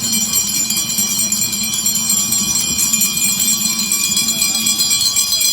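Many hand-held bells rung together by a crowd, a continuous mass of overlapping high ringing.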